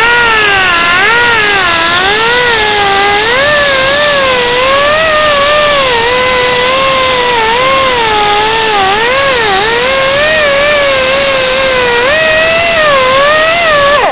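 Pneumatic right-angle die grinder spinning a small wire wheel to scrub epoxy off a VW AS41 engine case: a loud, steady air-tool whine over a hiss, its pitch wavering up and down. It cuts off abruptly at the end.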